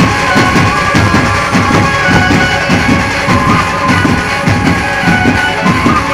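Dhumal band playing loud, heavily amplified music through truck-mounted speaker stacks: rapid, pounding drum beats under a sustained melody line.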